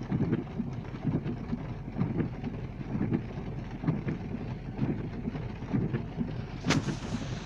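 Vehicle driving in the rain: steady road and wind noise with a low surge about once a second, and one sharp click near the end.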